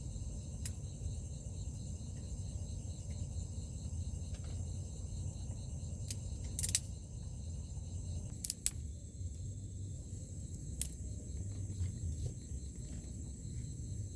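A steady, high-pitched chorus of crickets or similar insects over a low rumble. A handful of sharp clicks and knocks, the loudest about two-thirds of the way in, come from the camper handling gear.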